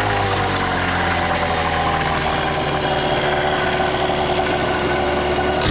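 Hangkai 12 hp 169 cc two-stroke outboard motor running steadily at low speed in a test barrel of water, during its break-in run.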